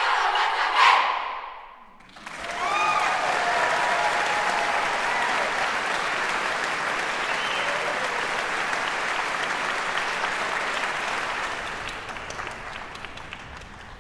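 A youth choir's final held chord cuts off about a second in. After a brief hush the audience breaks into steady applause, which fades away near the end.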